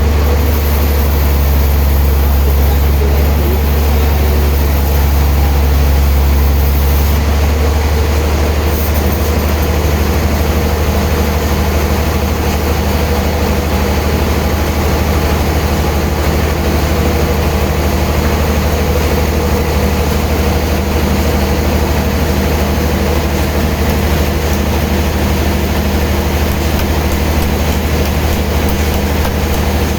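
Heavy sawmill machinery running with a loud, steady low hum; the sound changes slightly about seven seconds in.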